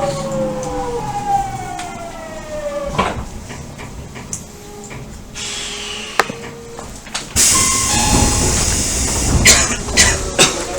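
Mitsubishi GTO-VVVF inverter and traction motors of an Odakyu 1000-series train under way, their whine of several tones gliding downward in pitch over the first few seconds, with occasional sharp wheel clacks. About seven seconds in, a loud rushing rumble with more clacks takes over.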